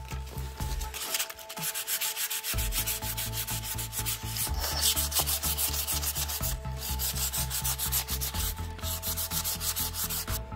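An abrasive sanding pad rubbed rapidly back and forth over the rusty steel head of a claw hammer, a fast run of scratchy strokes, scouring off the rust.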